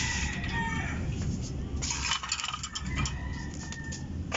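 Light clicks and taps of a fan's rotary speed switch and its wires being handled during soldering, with chickens clucking in the background.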